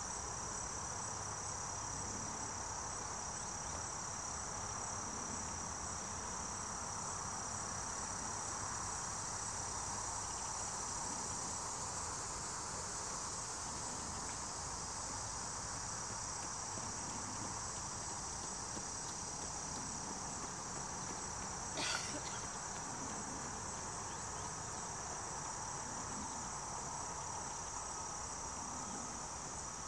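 Steady, high-pitched insect chorus that does not let up, with a fainter, lower insect hum beneath it. A single sharp click about two-thirds of the way through.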